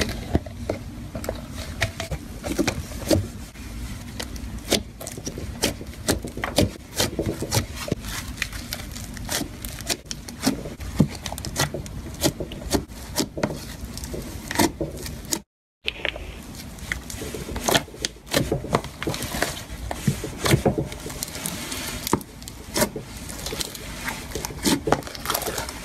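Hands squishing and mixing several slimes, with frequent irregular sticky clicks and pops as the slime is pressed and pulled. The sound breaks off for a moment about fifteen seconds in, then carries on.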